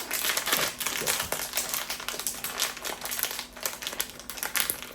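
Blind-box packaging handled and opened by hand: a rapid, uneven run of small clicks, taps and crinkles.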